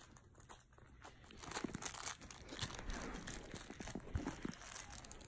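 Great Pyrenees puppies playing tug of war with a toy: faint rustling and a run of small clicks, picking up about a second in.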